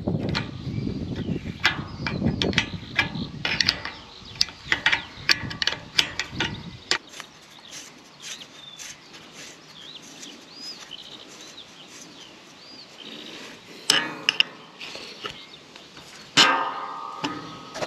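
Irregular metallic clicks and taps of nuts being screwed and tightened, one locked against the other, to fasten an irrigation pipe coupling. The clicks come thick with some handling rumble for the first seven seconds or so, then grow sparse.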